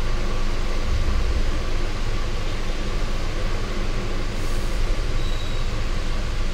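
Steady rumbling hum of running fans in a room. A brief soft hiss comes a little past four seconds in.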